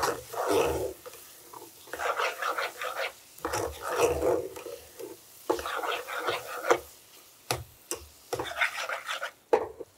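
Metal spoon stirring and scraping a thick mixture of minced chicken and corn around a hammered metal saucepan, in repeated scraping strokes. The spoon clinks sharply against the pan a couple of times near the end.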